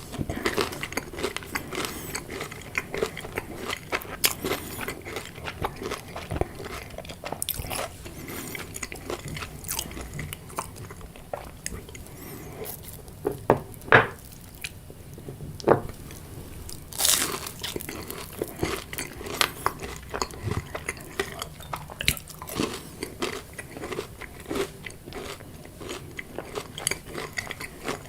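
A person chewing crunchy fried food close to the microphone: a steady run of crisp crunching and crackling bites, with a few louder crunches around the middle.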